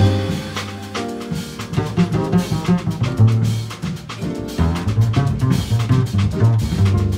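A jazz quartet of piano, saxophone, double bass and drum kit playing, with the double bass notes and drum strikes to the fore.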